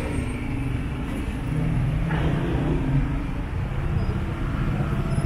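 City street traffic: car engines running and passing close by in a steady low rumble, swelling about two seconds in.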